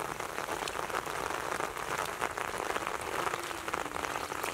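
Steady rain pattering on shallow water and wet grass: a dense, even crackle of drops.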